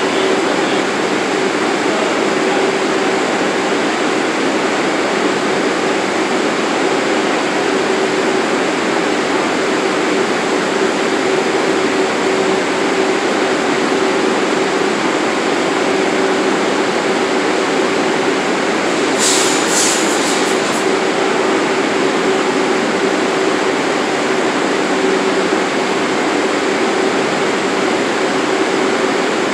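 Subway train standing in the station with its doors open, its onboard equipment giving a steady hum and hiss. A brief cluster of high clicks comes about two-thirds of the way in.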